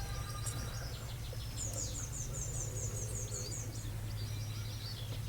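Small songbird singing, a quick run of about ten high repeated chirps lasting a second and a half, with other scattered chirps, over a steady low hum.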